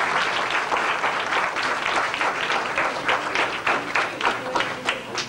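A small group applauding in a room, claps dense at first and thinning out to scattered claps near the end.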